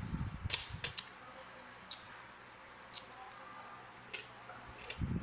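Light clicks and taps of lemon slices and fingers handled over a plate, a few scattered ticks about a second apart. There is low muffled thumping at the start and again near the end.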